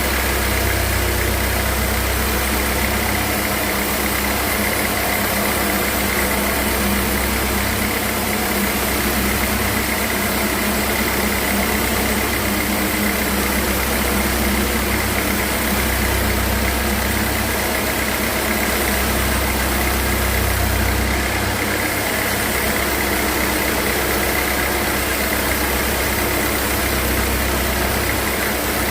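Sawmill machinery running steadily, a low hum swelling and fading every few seconds under a constant high whine.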